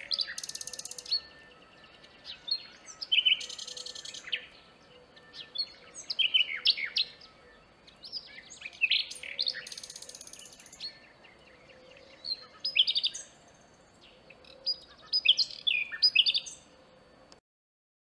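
Common nightingale singing: varied phrases of rapid repeated notes, buzzy trills and sharp whistles, each a second or two long with short pauses between. The song stops suddenly near the end.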